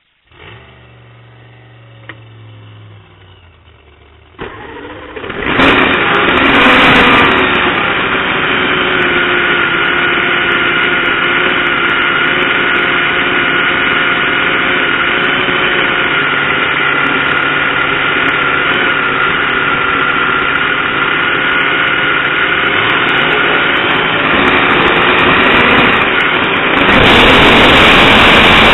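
Supercharged nitromethane-burning fuel altered drag-racing engine being cranked over, then firing about five seconds in and running steadily at idle, heard close from the car's onboard camera. Near the end it is opened up and gets much louder as the car pulls away for its burnout.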